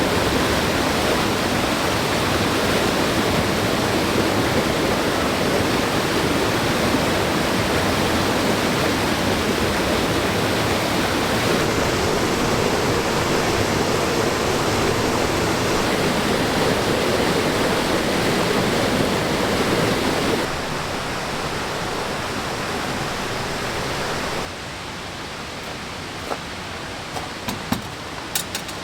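Steady rushing water of a waterfall and stream, dropping in level in two steps about twenty and twenty-four seconds in, with a few light clicks near the end.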